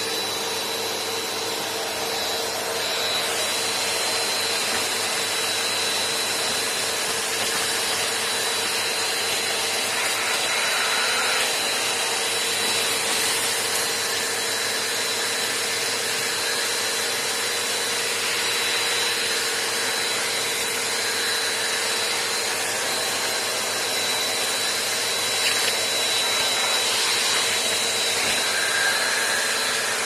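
Three Bissell upright vacuums (a PowerLifter and two PowerForces) running together, their taped-together hoses sucking up a pile of small plastic debris: a steady motor drone with a thin high whine over it.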